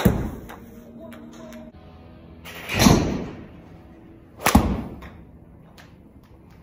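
A 7-iron striking a golf ball three times, sharp and loud, about a second apart at the start, then near the middle and again past two-thirds of the way; the middle strike is preceded by a rising rush of air. Background music plays underneath.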